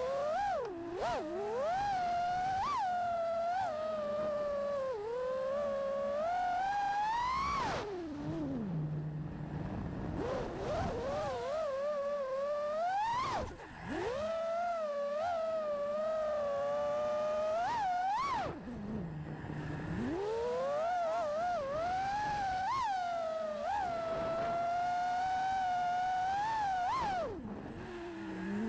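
FPV freestyle quadcopter's brushless motors (iFlight Xing2 2306 1750kv) and three-blade props whining, the pitch rising and falling constantly with the throttle. It climbs to a sharp high peak four times and drops away after each.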